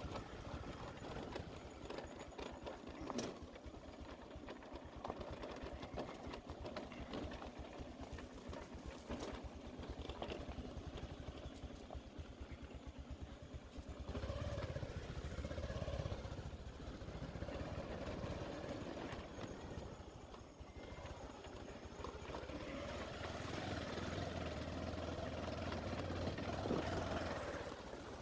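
Motorcycle engine running on the move, with a steady fast low beat and a wavering engine tone that gets louder from about halfway through.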